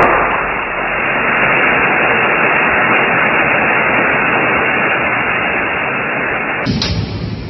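Steady, loud rushing hiss like static, heaviest at the start. Near the end it gives way to a different, lower rumbling sound.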